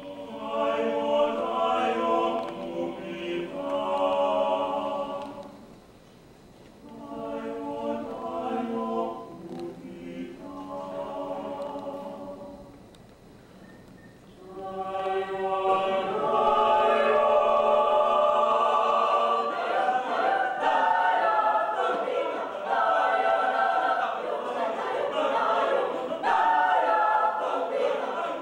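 Mixed choir of men's and women's voices singing a cappella in sung phrases, dropping to quieter passages twice, then swelling into fuller, louder singing about halfway through.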